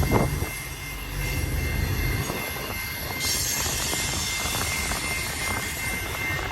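Intermodal freight train rolling past with the diesel engines of its refrigerated units running to keep the cargo frozen: a low engine hum that drops away about two seconds in, under steady rolling noise and a thin, steady high tone.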